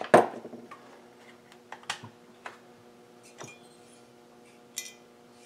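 Chainsaw engine parts handled on a wooden workbench: a knock as a part is set down just after the start, then scattered light clicks and taps as pieces are moved and a cylinder is picked up. A steady low hum runs underneath.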